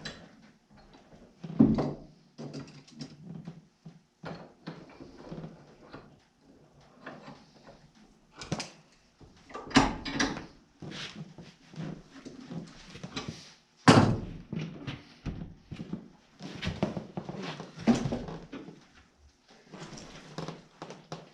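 Irregular knocks and clunks of metal being worked by hand as a small welded rebar gate-hinge piece is straightened toward square, with a few loud blows and lighter clatter between.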